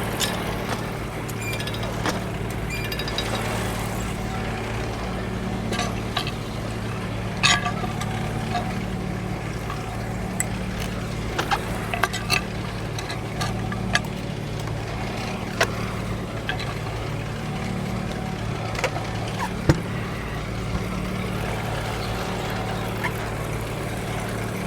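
Engine powering a Frick sawmill running at a steady speed, with scattered sharp metallic clicks and clanks.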